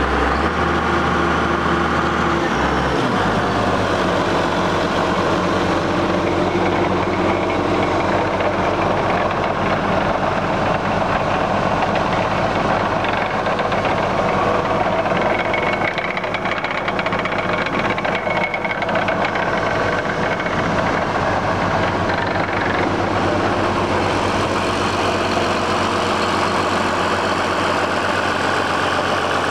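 Diesel engine of a 1990 Case IH 7130 Magnum tractor idling steadily, with a deeper note for the first three seconds or so.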